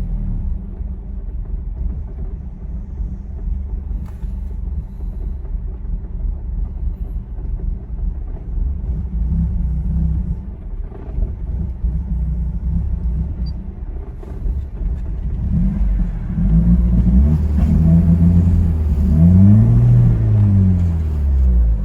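2002 Ford Focus SVT's 2.0-litre four-cylinder engine idling roughly and unevenly, then its revs rise and fall several times near the end. It is a warm-engine rough idle that stalls unless the gas is pressed, still there after new fuel pump, injectors, plugs, MAF sensor, IACV and O2 sensors.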